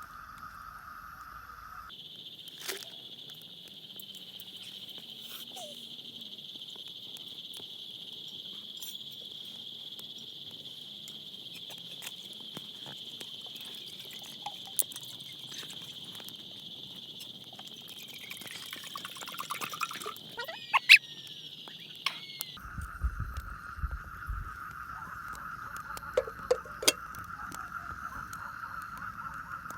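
Steady chorus of night insects, a continuous high trill whose pitch jumps abruptly twice, about two seconds in and again about three quarters through. Scattered sharp clicks and knocks, busier in the last third.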